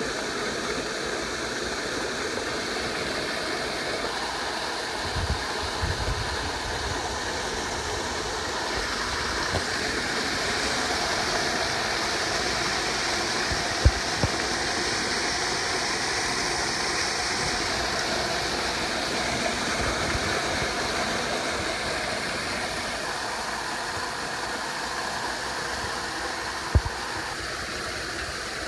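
Rainwater rushing steadily into a grated surface drain, with a few brief low knocks.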